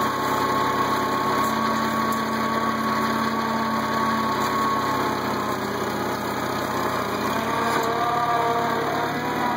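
International Cub tractor's four-cylinder engine running steadily at low speed while pulling cultivators through the soil, its pitch shifting a little in the second half.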